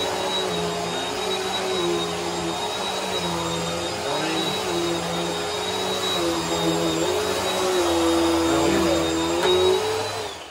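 Bissell PowerForce Helix upright vacuum cleaner running on carpet, pushed back and forth, with a steady high whine over the motor. Its lower tones sag and recover every second or two as the head is pushed, and the sound cuts off suddenly at the end.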